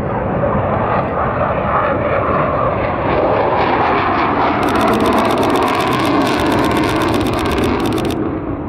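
Aircraft flying at an air show, its engine noise steady throughout, with a crackle added in the upper range from about halfway in until shortly before the end.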